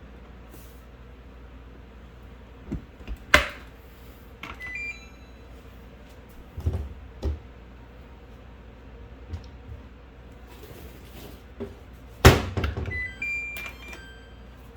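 Samsung dishwasher being shut and started: sharp clunks of the door and latch, a few duller knocks, and short electronic beeps from its control panel as buttons are pressed, twice.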